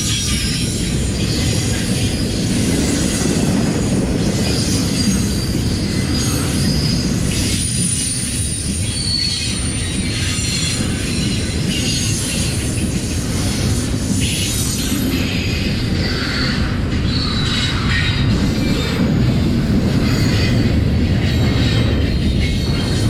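Intermodal freight train rolling past: a steady rumble of the cars on the rails, with high-pitched wheel squeal coming and going.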